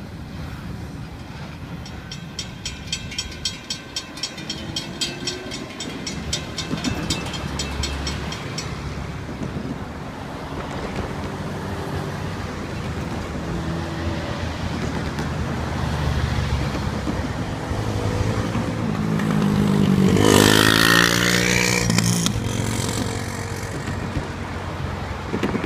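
Steady rail and road traffic noise as a freight train goes by. A rapid, even ticking runs from about two to eight seconds in. A vehicle passes close about twenty seconds in, its pitch gliding as it goes by, and this is the loudest moment.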